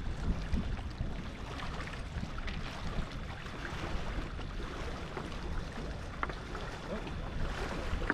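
Wind buffeting the microphone: a gusty low rumble over a steady hiss, with a few faint ticks.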